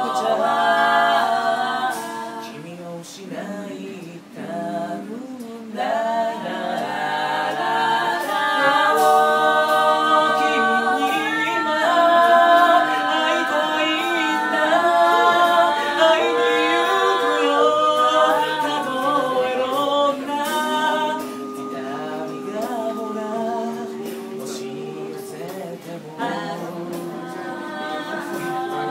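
A small a cappella group of male and female voices singing in harmony, several voices holding chords together with no instruments. A softer passage comes about two-thirds of the way through.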